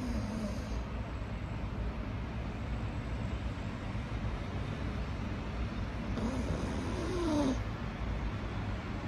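Pug snoring in its sleep, the noisy snore typical of a flat-faced dog's airway. One snore comes at the start and a longer one about six seconds in, which ends in a falling note, over a steady low hum.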